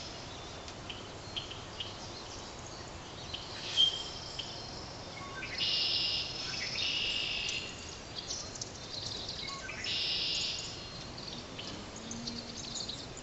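High chirping and trilling calls of small marsh animals over faint outdoor background noise. Two longer, louder trills come about six and ten seconds in.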